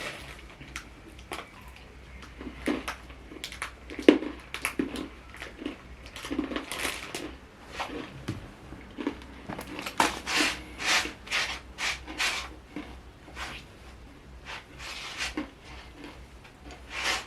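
Kitchen handling sounds while a snack of granola and yogurt is put together: dishes and containers knocking and clinking at irregular intervals, with short rustling sounds between them. One sharp knock about four seconds in is the loudest.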